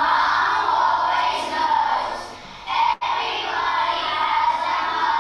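Children's voices singing a song in long held notes, with a brief cut in the sound about three seconds in.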